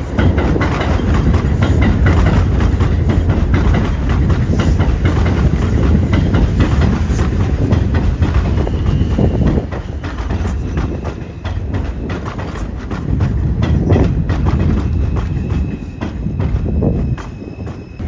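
New York City Subway 4 train running along the track: a loud low rumble with rapid clicking of wheels over rail joints, easing off briefly about ten seconds in and again near the end.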